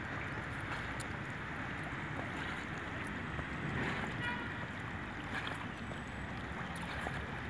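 Steady sloshing and lapping of lake water stirred up by a swimming dog.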